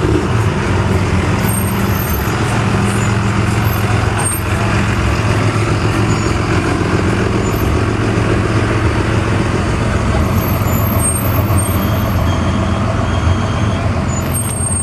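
An engine running steadily with a constant low hum, over busy outdoor background noise.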